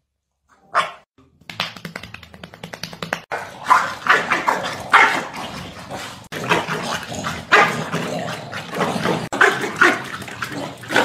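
Two corgis barking at each other in a face-off, a run of repeated loud barks.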